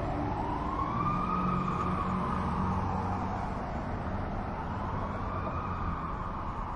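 Emergency vehicle siren wailing in a slow rise and fall, about four seconds to each cycle, over a low engine rumble, growing slightly fainter near the end.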